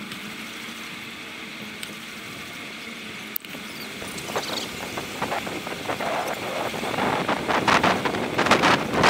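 Wind buffeting the microphone of a camera on a moving bicycle, with riding noise from the bike. It is fairly even for the first few seconds, with a single sharp click about three and a half seconds in, then the gusts surge unevenly and grow louder toward the end.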